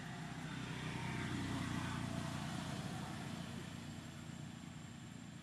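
Engine rumble of a motor vehicle going past, growing louder a second or two in and then slowly fading.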